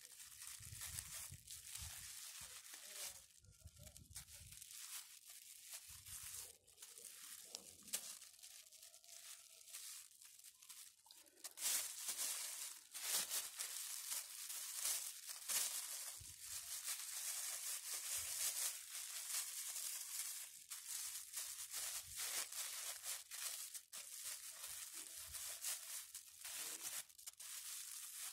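Clear plastic fridge bag packed with damp peat crinkling and rustling as hands gather its neck around a branch and tie it off, a dense run of crackles that grows louder and busier about halfway through.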